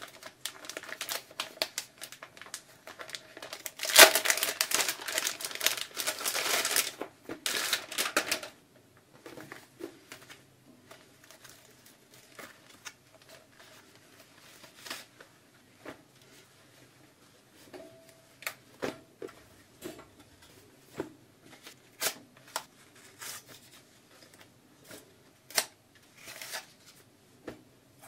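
A plastic bag crinkling as it is handled and torn open, with the loudest crackling in the first eight seconds and a sharp peak about four seconds in. After that come scattered light clicks and rustles of packaging being handled, recorded close on a binaural microphone.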